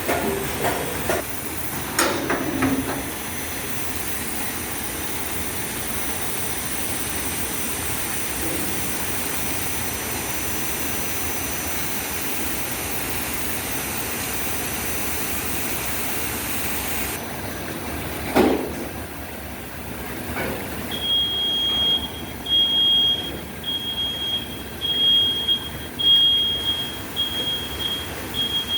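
Automatic bottle bundle-packaging machine running with a steady mechanical hiss, broken by a couple of sharp clanks. In the second half a high-pitched electronic beep starts repeating about once a second over irregular knocking.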